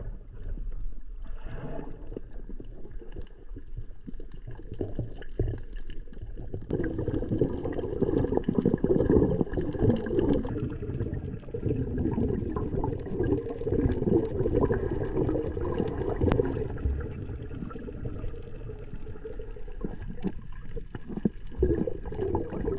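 Muffled water sloshing and gurgling heard through an underwater camera housing, a low rumbling wash with scattered ticks that grows louder from about seven seconds in.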